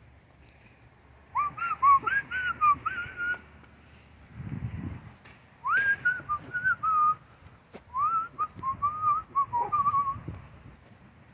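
Whistling in three phrases of quick, rising and falling notes, about five notes a second, with short pauses between the phrases.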